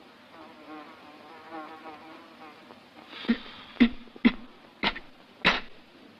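An insect buzzing, a wavering drone for about three seconds. It is followed by a run of five short, sharp sounds about half a second apart.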